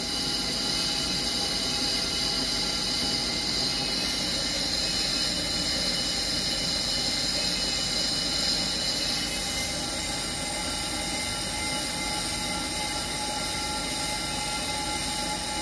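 Bench brake lathe turning a 2020 Hyundai Palisade rear brake rotor while the twin cutting bits skim both faces: a steady metallic machining sound with several high, ringing tones over the lathe's running motor.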